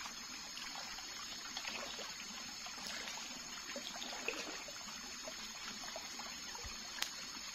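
Steady trickle of running water, with scattered faint ticks and one sharp click about seven seconds in.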